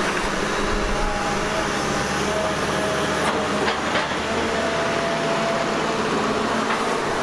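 Doosan DX380LC crawler excavator running as it works its arm. A steady, noisy machine sound with a faint wavering whine over it.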